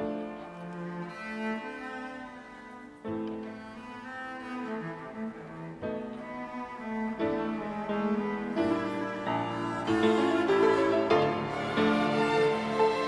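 Violin ensemble playing an instrumental interlude of a slow song on bowed strings, with sustained melodic notes over lower string parts. It grows louder in the second half.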